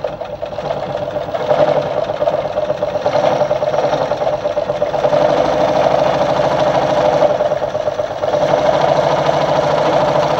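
Brother Pacesetter ZU2-B605 sewing machine sewing a fine straight stitch at a short stitch length. It picks up speed over the first second or two, then runs steadily at speed with a brief slowdown about eight seconds in.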